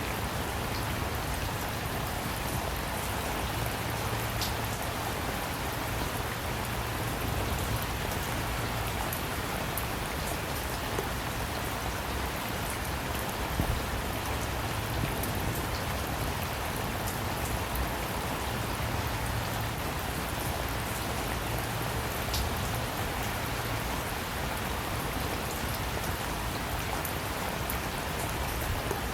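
Steady rain falling, an even hiss with scattered louder individual drops.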